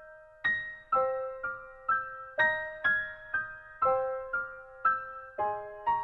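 Soft background piano music: single notes in a steady, even pulse of about two a second, each ringing and fading before the next.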